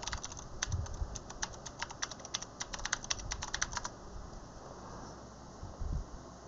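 Typing on a computer keyboard: a quick run of key clicks for about four seconds that then stops, with a soft low thump near the end.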